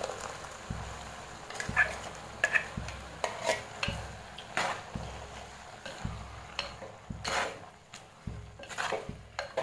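Steel spoon stirring thick ground coconut paste into diced papaya in an earthenware clay pot, with irregular scrapes and knocks of the spoon against the pot.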